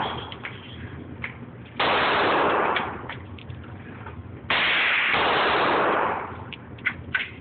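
Two 9mm Glock 19 pistol shots, about two and a half seconds apart. Each starts suddenly and hangs loud for a second or so before fading, with a few smaller sharp clicks near the end.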